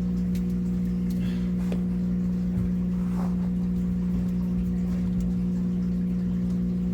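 Steady low mechanical hum, with a few faint light clicks and taps over it.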